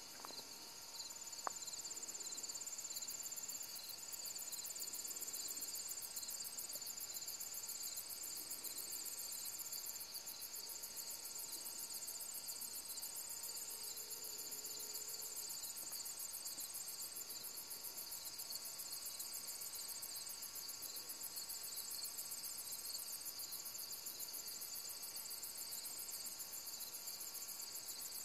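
Dusk chorus of crickets and other insects: steady high-pitched trilling and fast pulsing, several singers overlapping.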